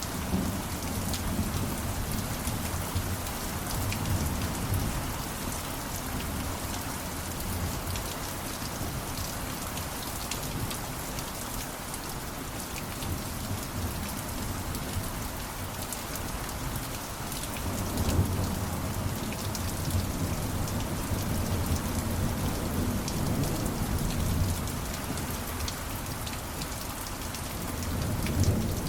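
Steady rainfall with fine pattering drops, and low rolling thunder rumbling under it at the start and again from about two-thirds of the way in.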